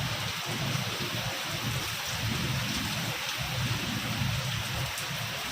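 Heavy rain falling steadily, a constant hiss with faint drop ticks and an uneven low rumble underneath.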